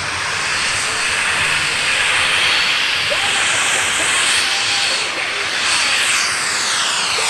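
SAB Avio Lizard radio-controlled jet's model turbine engine running at high thrust: a steady, loud hiss that swells and sweeps in pitch as the jet passes close, about three seconds in and again near the end.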